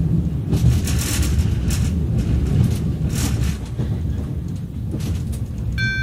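Running noise inside a 485-series express train coach: a steady low rumble of wheels on rail, with a few brief surges of hiss. Just before the end, an electronic multi-tone announcement chime begins.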